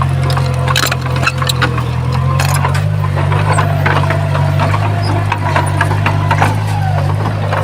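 Diesel engine of heavy earthmoving machinery running steadily, with frequent metallic clanks and rattles over it.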